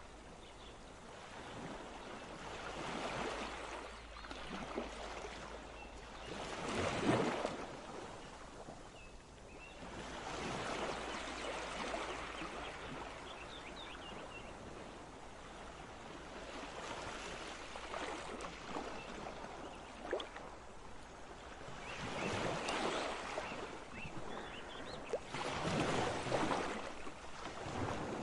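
Rushing water, like waves washing in, swelling and fading every few seconds with no steady rhythm.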